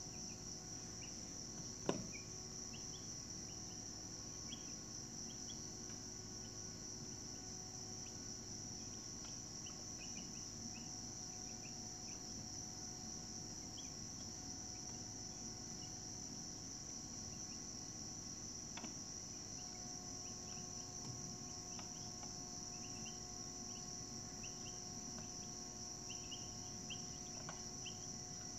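Insect chorus trilling in a steady, unbroken high-pitched drone, with faint short chirps scattered through it and more of them near the end. A single sharp click comes about two seconds in.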